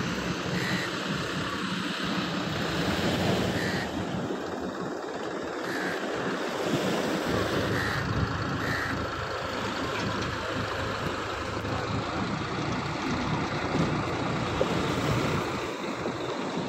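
Surf breaking and washing up the beach, mixed with a farm tractor's engine running steadily close by, with wind buffeting the microphone.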